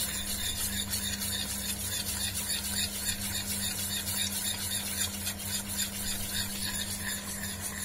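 Metal spoon stirring a thick lemon-and-cornflour sauce in a small stainless steel saucepan, with a steady low hum underneath.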